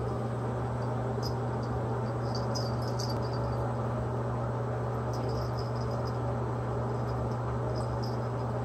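A steady low hum with a constant background haze. Faint, short high-pitched ticks come a few times as a ferret and a kitten wrestle on a shaggy rug.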